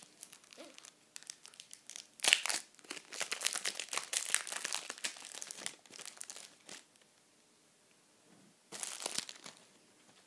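Foil wrapper of a Match Attax trading-card packet crinkling as it is handled and torn open, a dense run of crackles from about two to seven seconds in and a short burst near the end.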